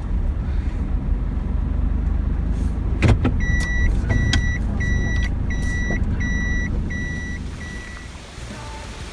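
Van cabin with a steady low road and engine rumble on a rough road, a sharp clunk about three seconds in, then a run of about seven evenly spaced electronic beeps that fade away.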